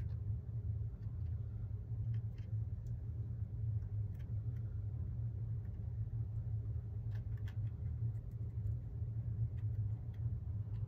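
A steady low hum, with a few faint clicks and taps scattered through it.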